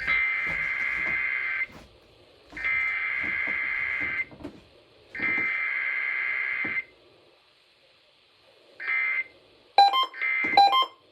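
Emergency Alert System data header sent three times over AM radio: each burst is about a second and a half of harsh, buzzing digital warble, with a pause of about a second between them. From about ten seconds in, a choppy run of short two-tone beeps follows: the EAS attention signal.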